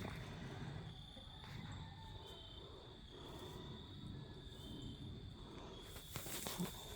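Crickets trilling faintly and steadily in one continuous high tone, over low background noise.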